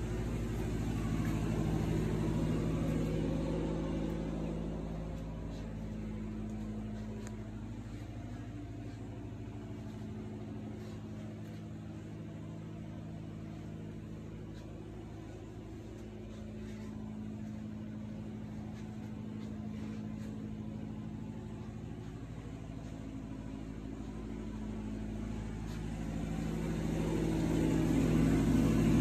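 Steady low mechanical hum of a running motor, growing louder over the last few seconds.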